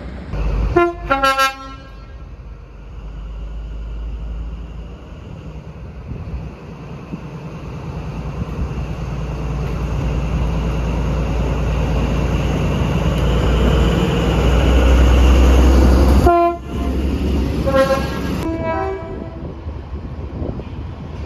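Train horn sounding several short blasts at differing pitches. A passing train's rumble then builds steadily to a loud peak and cuts off suddenly. More short horn blasts follow after the cut.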